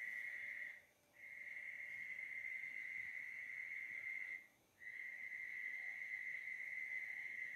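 Insect trilling steadily on one high pitch, breaking off briefly twice, about a second in and again about four and a half seconds in.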